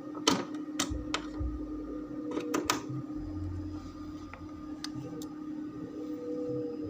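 Several sharp clicks and knocks, a few in quick succession, over a steady electrical hum.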